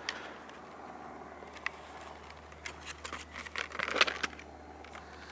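Hands handling a clear plastic blister pack: scattered crinkles and sharp clicks, denser in the second half, with the loudest crackle about four seconds in.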